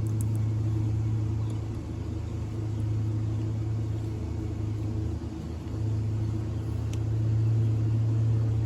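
A steady low machine hum, a constant drone that slowly swells and eases in level.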